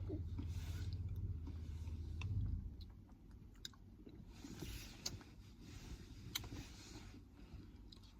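Someone chewing granola with yogurt and fruit close to the microphone, with small crunches and clicks. A low steady hum underneath stops about two and a half seconds in.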